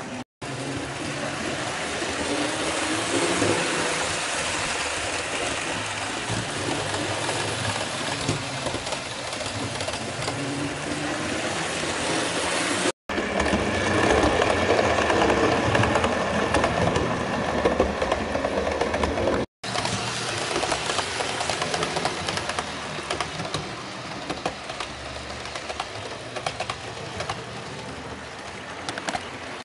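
HO-scale model doodlebug with a Varney electric motor running along the track: a steady whirr of the small motor and wheels on the rails. It is louder for several seconds in the middle, with a thin steady whine, and drops out briefly three times.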